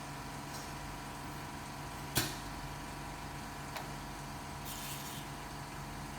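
A machine running with a steady hum, with a sharp click about two seconds in, a fainter click near four seconds, and a brief hiss about five seconds in.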